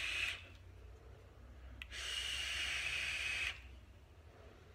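Wismec Theorem rebuildable tank atomizer being drawn on: an airy hiss with a steady high whistle from its airflow holes, ending a moment in. Then a click, and a second whistling draw lasting about a second and a half.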